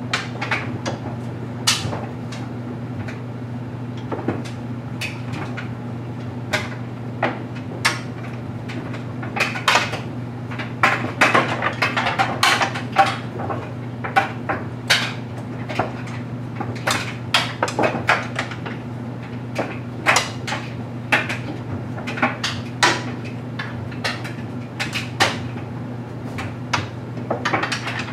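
LG Mega Capacity clothes dryer tumbling a load of stuffed animals: a steady low hum from the running drum, with irregular clicks and knocks as the toys drop against the drum and door.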